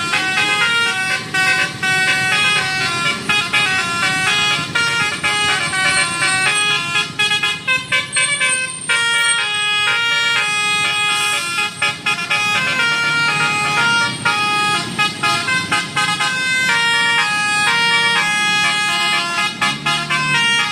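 Tour bus's Basuri multi-tone 'telolet' horn playing a tune: a quick, unbroken run of stepped, held horn notes.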